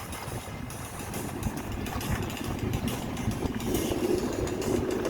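Sailboat's auxiliary engine running steadily, a low rumble under wind and water noise.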